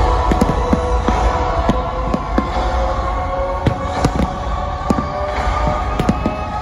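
Fireworks going off: a string of sharp bangs and pops at irregular intervals, two or three a second, over steady music.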